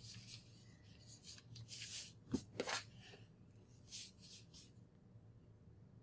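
Faint scratchy swishes of a fineliner pen and hands moving over drawing paper. There are a handful of short strokes in two clusters, about two seconds in and again around four seconds in.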